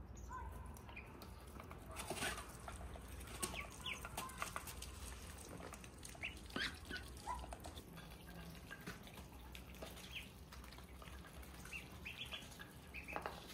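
Ducklings peeping faintly in short high calls, more of them near the end, with scattered light clicks and taps as an adult white domestic duck eats feed from a plate.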